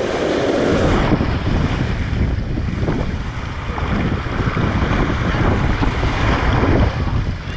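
Shallow surf washing up the sand and swirling around a phone held at the waterline: loud rushing water with a steady low rumble of buffeting on the microphone.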